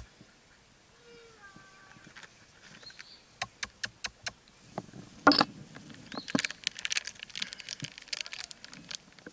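Faint domestic cat meows in the first two seconds. Then a string of clicks, one loud knock about five seconds in, and a dense clattering of tree-climbing hardware: rope, carabiners and a rope clamp being handled.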